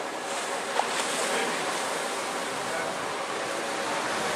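Steady rush of ocean surf, with a brief sharp click about a second in.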